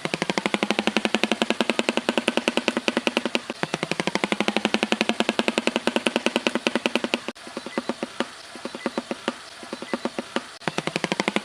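Shoebill clattering its bill: a fast, even rattle of claps in runs of about three and a half seconds, each broken off briefly before the next begins, at about 3.5, 7 and 10.5 seconds in.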